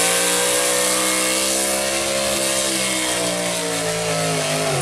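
Big-block gas V8 of a 4x4 pulling truck on open headers, running flat out under full load as it drags a weight-transfer sled. The pitch holds high, then sags over the last couple of seconds as the load builds, falling away at the very end.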